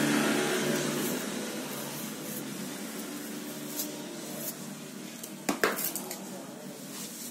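Small metal parts of a motorcycle starter motor clinking in the hand: a few light clicks from about four seconds in, the loudest pair just before six seconds. A steady hum fades away over the first few seconds.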